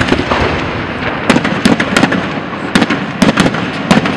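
Aerial fireworks exploding: a quick string of sharp bangs at irregular intervals, some in close pairs, over constant crackling between them.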